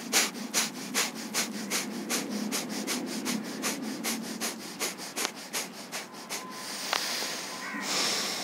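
Kapalbhati breathing: rapid, forceful nasal exhalations in an even rhythm of about three a second, at the fastest practice speed. They stop about six and a half seconds in and give way to a longer, steadier breath.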